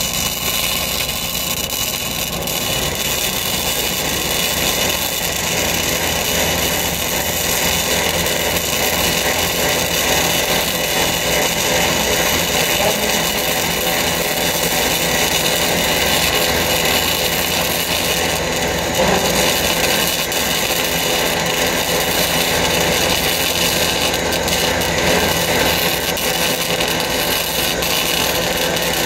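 Flux-core wire-feed welding arc sizzling steadily without a break as a continuous bead is laid on structural steel plate.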